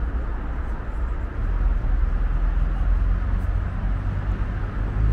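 Steady low rumble of road traffic, growing louder about a second and a half in.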